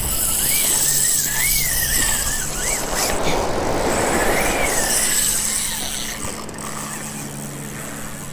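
Spinning reel's drag giving a wavering whine as a hooked shark pulls line off, twice, over steady surf and wind noise that drops a little near the end.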